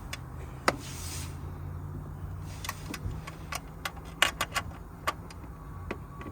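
Garage work noise: a string of sharp clicks and clinks over a steady low hum, with a short hiss about a second in.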